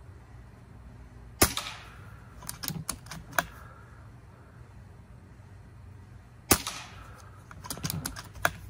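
Two shots from an AEA .22 air rifle with a shortened barrel shroud, about five seconds apart. Each sharp crack is followed a second or so later by a few smaller sharp clicks.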